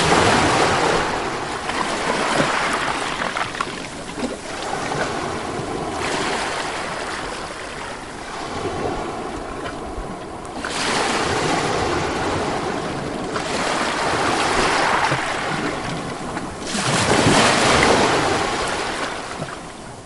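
Sea waves washing against the rocks of a harbour breakwater, with some wind. The rushing swells and eases in surges every few seconds.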